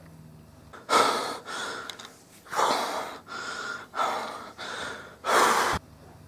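Heavy breathing right against the microphone: about seven loud, hoarse gasping breaths in quick succession, the last one cutting off sharply.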